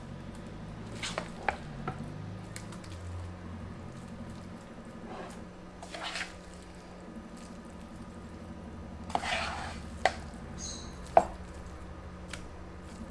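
Cabbage being tipped onto batter in a cake pan: a few soft rustles and scattered sharp clicks of a utensil against the pan and bowl, over a low steady hum.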